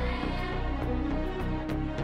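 Background music with a bass line and a percussion beat.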